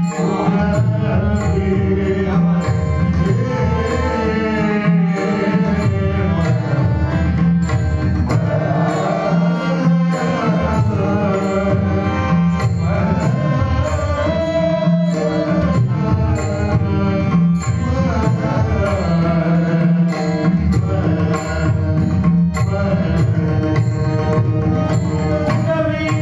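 Marathi devotional bhajan: a solo voice singing a melodic line over mridang drumming, with an even beat of small high ticks keeping time.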